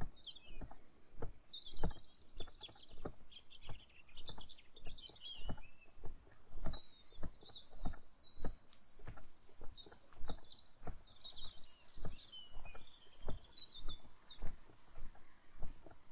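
Footsteps on a woodland path, about two a second, under a songbird singing a long, fast, varied warbling song high in pitch. The song stops shortly before the end.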